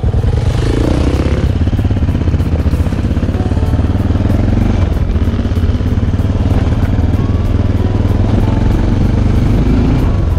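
1992 Aprilia Pegaso 650's single-cylinder engine running steadily while riding along a gravel track, heard loud and close from the bike, starting abruptly at the cut.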